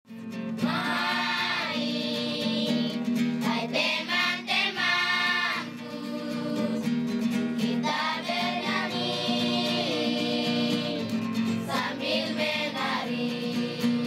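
Opening music: a voice or voices singing long held notes in slow phrases over a steady low drone.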